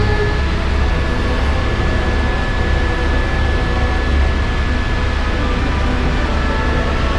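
Helicopter cabin noise in level flight: the rotor and engine's steady low drone with a thin, steady high whine over it, heard from inside the cockpit.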